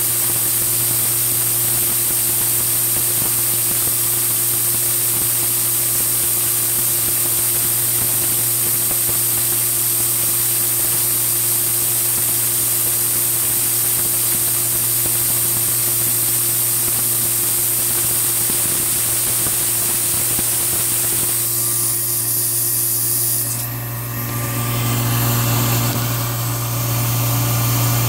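Tormach PCNC 1100 CNC mill engraving copper: a steady spraying hiss from the coolant nozzle over a steady hum from the machine. About 23 seconds in the hiss stops and the machine's hum gets louder.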